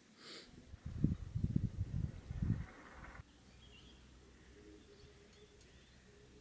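Wind gusting across the microphone in low, irregular buffets for about two seconds, cutting off abruptly. Then a quiet outdoor background with a few faint bird chirps.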